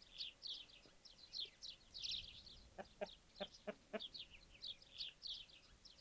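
Many small birds chirping in a continuous stream of quick, high chirps. About three seconds in there is a short run of five lower clucking calls.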